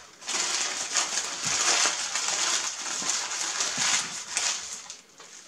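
Paper sandwich wrapper crinkling and rustling as it is folded and crumpled up by hand; it dies away near the end.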